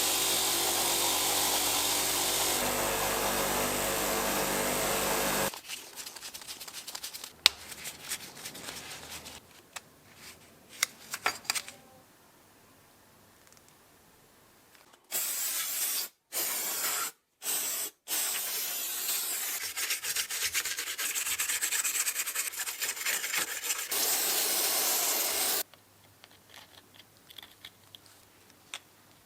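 Power-tool work on drill press parts. A motor-driven tool runs steadily for about five seconds and stops, then small clicks and knocks of parts being handled. From about fifteen seconds a loud even hiss-like grinding runs in several clipped stretches until about twenty-five seconds, then faint handling clicks again.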